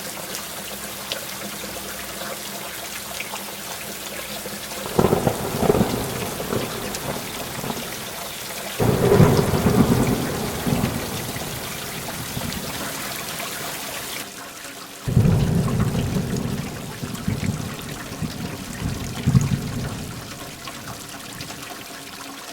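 Heavy rain falling steadily, with three rolls of thunder about five, nine and fifteen seconds in, each starting with a crackling peak and rumbling away over several seconds.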